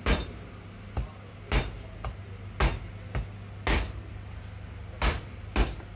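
Meat cleaver chopping through lamb shanks above the joint onto a plastic cutting board: a run of sharp chops, roughly one a second, some lighter than others.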